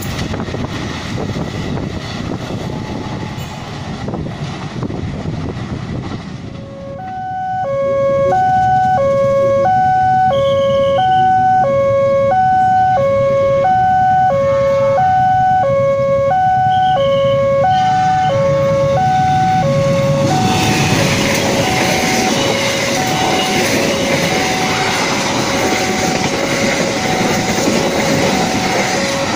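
Railway level-crossing warning alarm sounding two alternating electronic tones, high and low, about one pair a second. From about 20 seconds in, a passing train's loud rumble takes over, with the alarm still faintly going. The first few seconds hold the fading noise of a train moving away.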